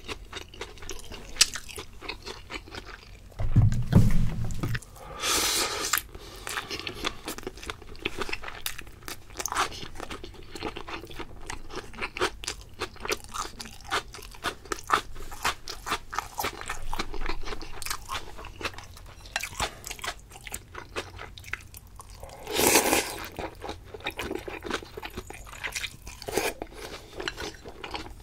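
A person chewing sushi close to the microphone: crunchy, wet mouth sounds with many small clicks. There is a low thump about four seconds in, and two short stretches of breathy noise.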